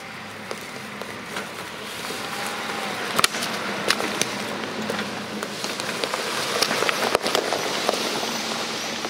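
Mitsubishi Pajero 4x4 driving up a dry forest dirt track and passing close by, its engine growing louder. The tyres crunch over twigs and stones with sharp cracks, loudest around three to four seconds in. A second off-road vehicle is coming up behind.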